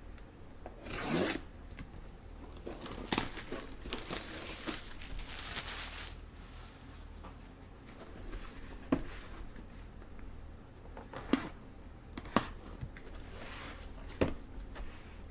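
Packaging being torn open and crinkled by hand, with rustling bursts in the first half, then a few sharp clicks and knocks of the contents being handled.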